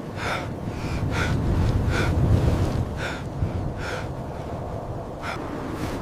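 A man breathing hard in short, rhythmic gasps, about one breath a second, over a steady low rumble of wind.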